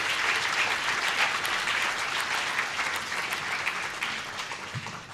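An audience applauding, a dense patter of many hands clapping that slowly thins and dies away near the end.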